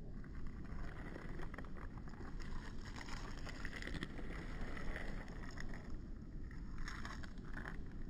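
Hands brushing and scraping over dry, gritty dirt and small stones, a crackly, scratchy rustle with many small grains clicking, loudest near the end. A low steady rumble sits underneath.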